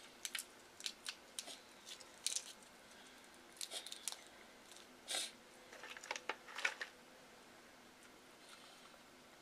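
Boiled shrimp's shell being peeled by hand: short crackles and wet clicks in scattered clusters, stopping about seven seconds in.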